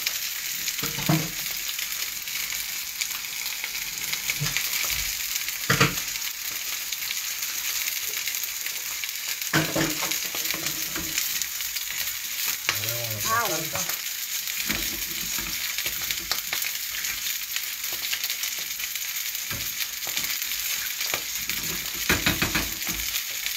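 Salmon fillets sizzling in hot oil in a frying pan, a steady high hiss. A few short knocks and scrapes come from a wooden spoon stirring sauce in a small saucepan.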